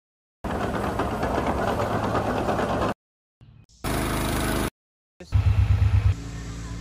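Machine engines heard in three short clips cut one after another, each starting and stopping abruptly: a steady running engine, a brief higher-pitched engine, then an engine with a fast low clatter.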